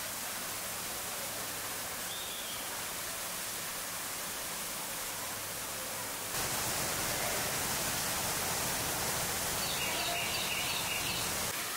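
Steady rushing of water, a little louder from about six seconds in, with a few faint high chirps near the end.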